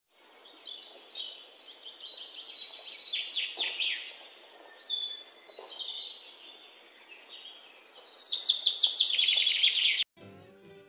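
Songbird singing a run of varied high chirping phrases and trills, ending in a loud, rapid trill that cuts off suddenly about ten seconds in.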